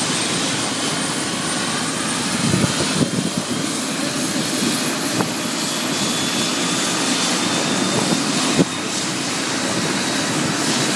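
Helicopter running on the ground after landing: a steady rush of engine and rotor noise with a faint high whine.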